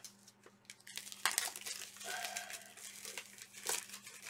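Plastic shrink-wrap crinkling and tearing as it is peeled off a book, starting about a second in as a dense run of crackles.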